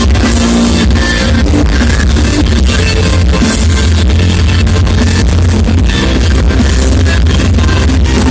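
Loud music with heavy bass and a busy drum beat.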